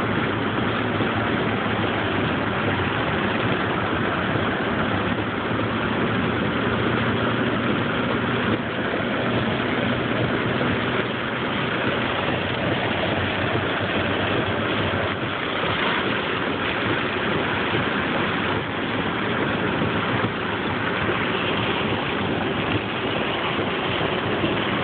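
Steady noise of rain on the car and tyres on the wet road, with the car's engine running underneath.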